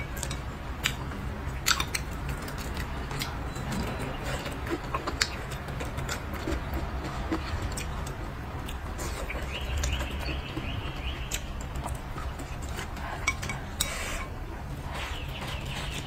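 Wooden chopsticks clicking and scraping against a ceramic bowl, with chewing and mouth sounds in between, at irregular intervals over a steady low hum.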